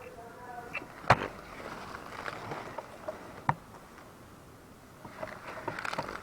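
Two sharp cracks about two and a half seconds apart, amid scattered rustling and crackling that grows busier near the end.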